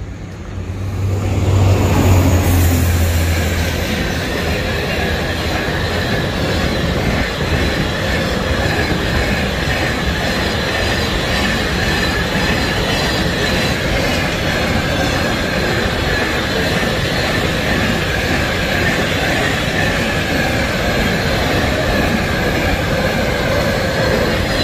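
Freight train passing close by: a diesel locomotive's engine comes past loudest a couple of seconds in, then a long string of covered freight wagons rolls by with a steady high wheel squeal, the noise dropping off near the end.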